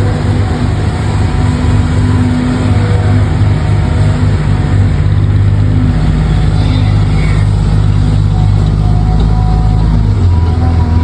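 Steady, low engine drone of a truck, held at a constant pitch, shifting to a slightly different note about ten seconds in.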